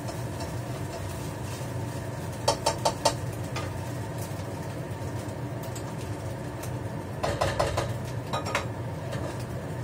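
Spatula clinking against a frying pan: four quick taps about two and a half seconds in, then another group of clinks around seven to eight and a half seconds in, over a steady low hum.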